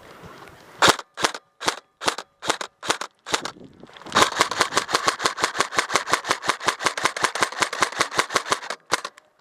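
Airsoft gun firing: a string of single shots, about two or three a second, then from about four seconds in a long rapid burst of roughly nine shots a second that stops shortly before the end.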